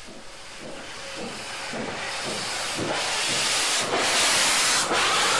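Chesapeake & Ohio 614, a Lima-built 4-8-4 steam locomotive, blowing steam from its open cylinder cocks as it gets moving. The steady hiss grows louder, with brief dips about once a second in the second half.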